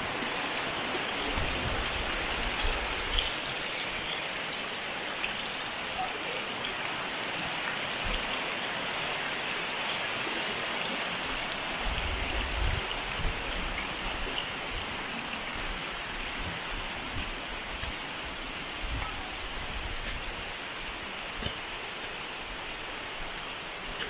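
Shallow rocky stream rushing steadily over stones, with a high-pitched chirp repeating about twice a second above it. Brief low rumbles come twice, near the start and about halfway through.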